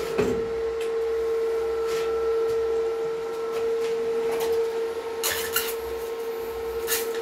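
Twisted copper wire ends being welded with a graphite electrode: the arc crackles and hisses in short bursts, most strongly about five seconds in and near the end, over a steady high whine.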